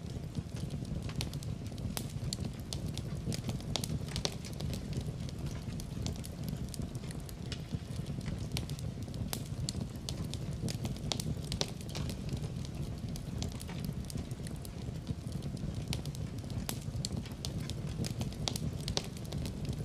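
Fire in a fireplace crackling, with frequent irregular sharp pops over a steady low rumble.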